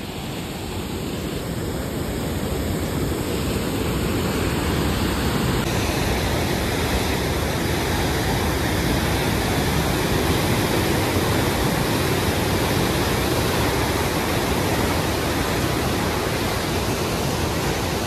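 Swollen Pindar river in strong flow, a steady loud rushing of fast water that grows louder over the first few seconds and then holds.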